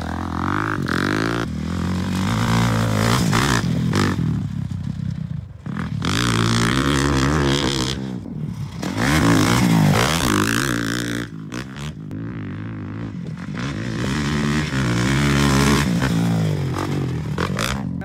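Dirt bike engine revving hard and easing off again and again as the bike accelerates, shifts and rides across the track, its pitch climbing and dropping several times.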